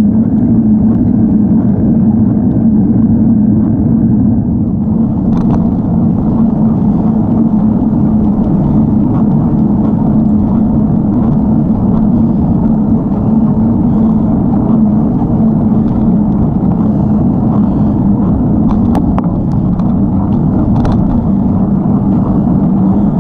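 Wind buffeting the microphone of a bicycle-mounted camera while riding, a loud steady low rumble, with a few faint ticks.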